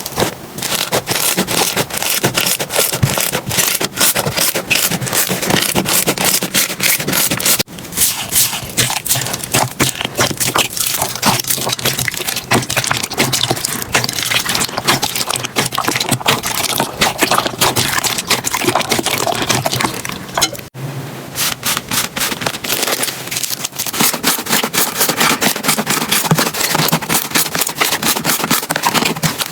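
Slime being squeezed and poked by hand, giving dense, rapid crackling and popping, with two abrupt changes about a third and two-thirds of the way through.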